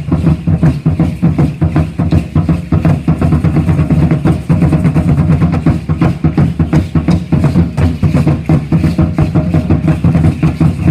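Aztec ceremonial dance drumming on a tall huehuetl drum, beating a fast, steady, loud rhythm.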